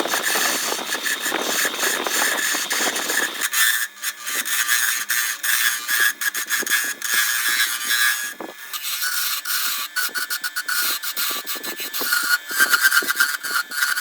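A tool working wood, cutting or abrading it with rapid, uneven scraping strokes; the sound thins out and turns higher about three and a half seconds in.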